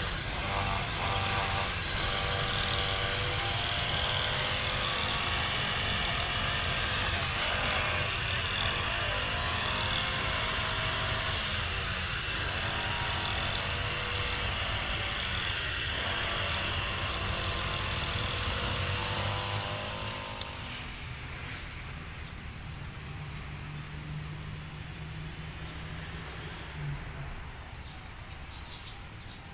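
Diesel locomotive engine running loud with a deep rumble, its pitch shifting up and down around the middle, then fading about two-thirds of the way through.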